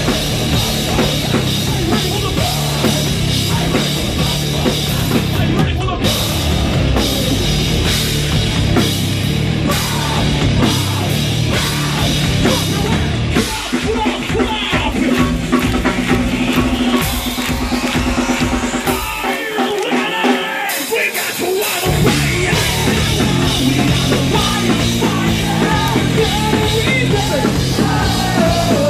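Metalcore band playing live, loud, with a pounding drum kit, guitars and vocals. About halfway through, the heavy low end gives way to a thinner pulsing part, drops out entirely for a couple of seconds, then the full band crashes back in.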